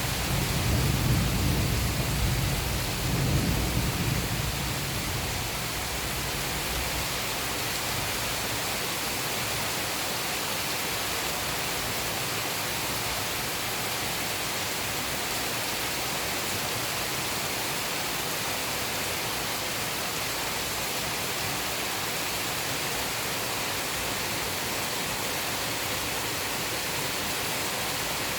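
Steady heavy rainfall, with a low rumble of thunder in the first few seconds that swells twice and fades out about five seconds in.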